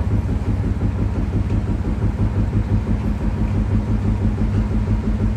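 Siemens washing machine running with its drum spinning, a loud low rumble pulsing at a fast, even beat. The shaking is blamed on defective dampers (shock absorbers), though a Siemens technician judged them in order.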